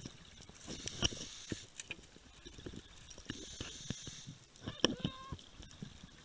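Scuba regulator breathing underwater: two bursts of exhaled bubbles about a second long each, with scattered light clicks and knocks in between.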